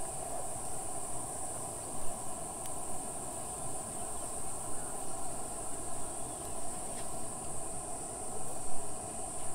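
A steady, high-pitched insect chorus in the grass, with a few light clicks of a metal spatula against a frying pan.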